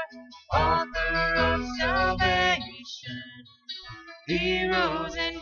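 A live worship band playing a song: strummed acoustic guitars, drums and electric guitar, with voices singing. The music drops away briefly a little past the middle and then comes back in full.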